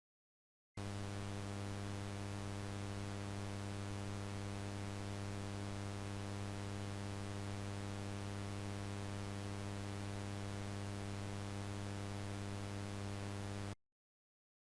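Steady low electrical buzz of mains hum with static hiss over it. It starts abruptly just under a second in, holds level throughout, and cuts off suddenly about a second before the end.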